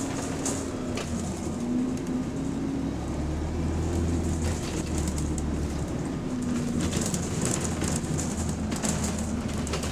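Cabin sound of a moving Alexander Dennis MMC bus: a steady low drivetrain drone with a whining tone that wavers in pitch, and light rattles and clicks from the bodywork.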